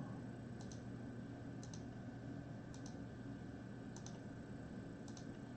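Faint clicking at a computer, roughly once a second, over a low steady hum.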